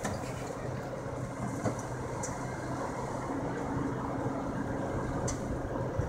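Heavy diesel engines of the recovery equipment (tow trucks and excavator) running steadily in a low drone. A higher steady hum joins for about two seconds in the middle.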